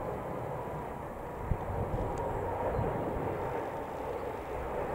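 Jet noise from a pair of BAC Strikemasters' Viper turbojet engines flying past in a display: a steady, distant rushing sound with a faint steady whine.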